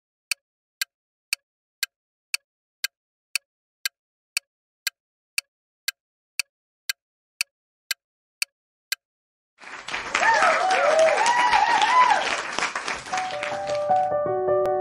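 Countdown timer sound effect: a clock ticking about twice a second for roughly nine seconds. Then a burst of applause with cheering, and a piano tune starts near the end.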